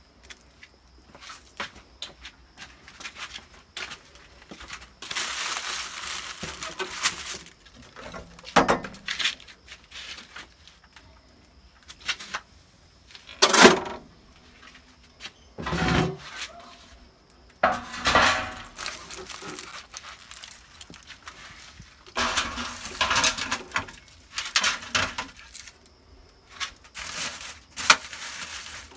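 Metal rack and baking tray clattering and scraping, in irregular knocks and scrapes, as a foil-wrapped roast is slid into a brick wood-fired oven; the loudest knock comes about halfway through.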